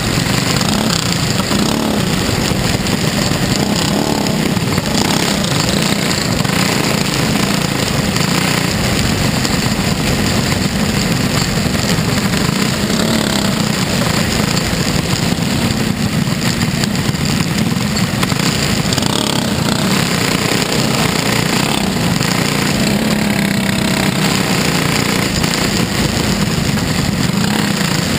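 Onboard sound of a dirt-track race car's engine running hard at racing speed, a loud, steady, unbroken roar.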